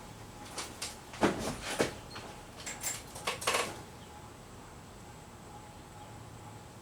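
A 56-inch Canarm Industrial ceiling fan running with a faint steady hum, just turned up to its usual speed. A handful of sharp clicks and knocks in the first few seconds, then only the hum.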